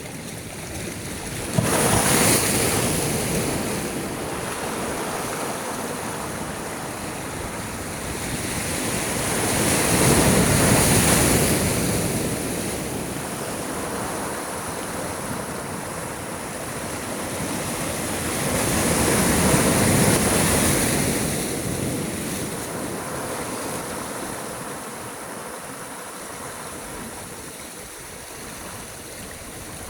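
Sea waves breaking, swelling three times about nine seconds apart, the first coming in suddenly about two seconds in, with a softer wash in between.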